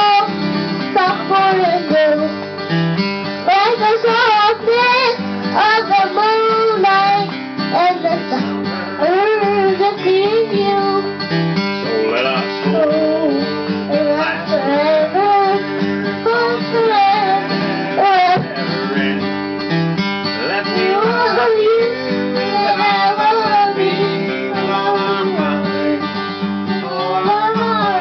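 Bluegrass music led by acoustic guitar, with a small child's voice singing along.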